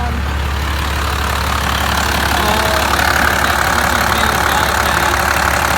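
Second-gen Dodge Ram's Cummins turbo-diesel idling steadily with its diesel clatter, the AC compressor engaged. A steady rushing hiss comes up about two seconds in.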